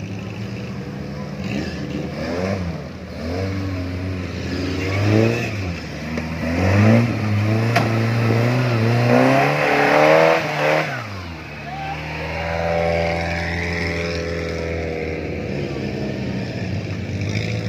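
Off-road 4x4 engine revving hard again and again as it climbs a rutted mud track, rising and falling in pitch, loudest about seven to ten seconds in. About eleven seconds in it drops to a steadier, lower drone.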